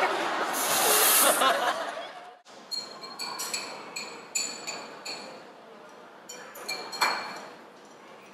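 Voices and laughter in a hall with a short hiss about a second in. Then, after about two and a half seconds, light clinks of glass beakers and flasks knocked and set down on a lab bench, each ringing briefly.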